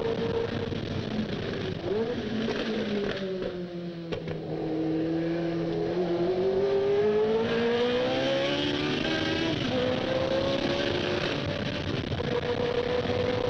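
Ford Cosworth DFV V8 of a Tyrrell P34 Formula One car heard on board at racing speed. The engine note drops as the driver brakes and changes down about two seconds in, stays low for a moment, then climbs steadily as the car accelerates. It steps down at an upshift near the ten-second mark and runs high again.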